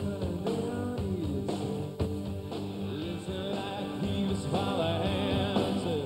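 Rock song performed by a band: a male lead vocal over drums and electric guitar, with a steady beat of about two drum hits a second.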